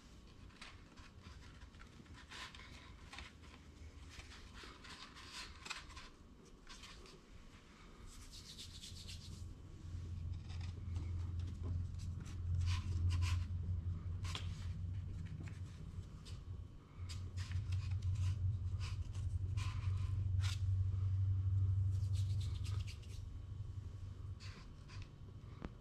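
Rubbing and scraping with scattered light clicks and taps; from about ten seconds in to about twenty-three seconds in, a heavier, low rubbing rumble takes over.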